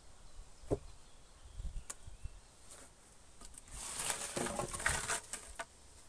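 Two sharp wooden knocks, then a burst of scraping and rustling lasting a second or two, with small clicks: a thin wooden pole being shifted and handled against logs and the litter of bark chips and dry leaves on the floor.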